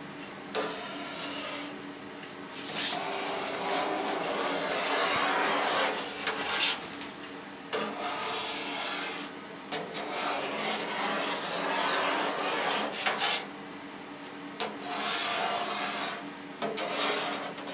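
A long kitchen knife drawn through set cheese curd in a stainless steel pan, its blade scraping along the steel in long strokes of a few seconds each, with short pauses between strokes as the curd is cut into strips.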